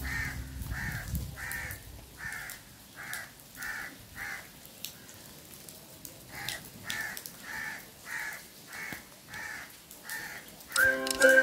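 A crow cawing over and over, about one and a half caws a second, in two runs of seven or eight caws with a pause of about two seconds between them.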